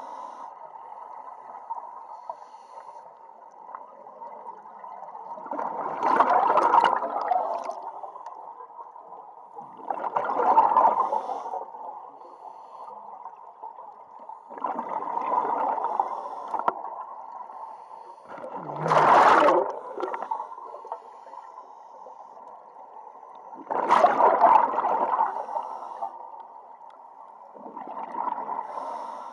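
Scuba diver breathing through a regulator underwater: a burst of exhaust bubbles about every four to five seconds, six in all, with a steady quieter underwater noise between.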